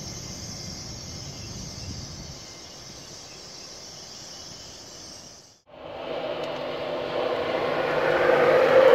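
LNER Class 801 Azuma electric train pulling out of the platform, a steady hiss and rumble that slowly fades. After a sudden break a little past halfway, an LNER Class 91 electric locomotive and its coaches approach at speed, growing steadily louder with a steady whine.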